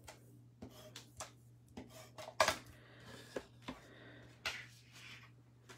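Scattered clicks, taps and light scraping of cardstock and a handheld adhesive dispenser being handled and set down on a stone countertop, with the loudest knocks about two and a half and four and a half seconds in.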